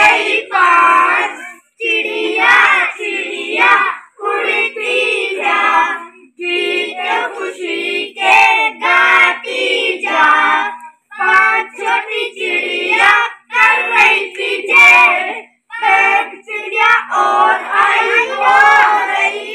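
A group of children singing a song together in unison, in phrases a few seconds long with short breaks between them.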